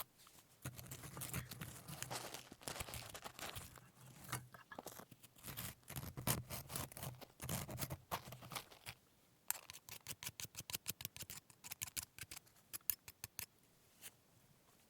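Close-miked crackling and scraping of kitchen handling. About halfway through it gives way to a run of quick light taps, about five or six a second, which stop shortly before the end.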